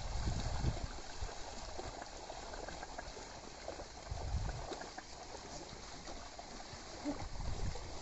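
Water and mud sloshing as a pair of bullocks and a plough wade through a flooded field, with low splashing thuds of hooves and feet near the start, around the middle and near the end.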